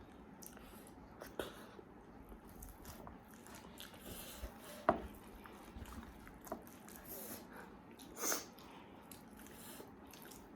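Faint mouth sounds of a person eating: chewing and soft lip smacks with scattered sharp clicks, the loudest about five seconds in. A short breathy burst comes near the eight-second mark.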